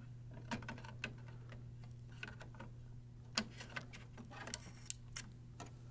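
Faint plastic clicks and taps of an HP 952 ink cartridge being handled and pushed into its slot in an HP OfficeJet Pro 8710 printhead, with a sharper click about three and a half seconds in, over a low steady hum.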